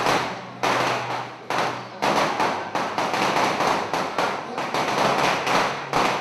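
A string of firecrackers going off in continuous dense crackling, with fresh loud surges about half a second, a second and a half, and two seconds in.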